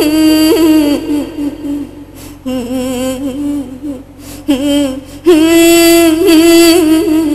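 A woman singing a folk melody in long held, wavering notes, with a few short breaks between phrases. The longest and loudest held note comes in the second half.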